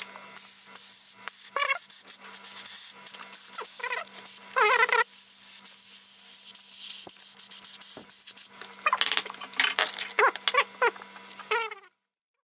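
Squeaks and rubbing of a flexible reusable casting mould being stretched and worked over a cast gear by hand: short high squeaks, some gliding or wavering, come a few at a time and then in a quick run near the end, over a steady low hum. The sound cuts to silence near the end.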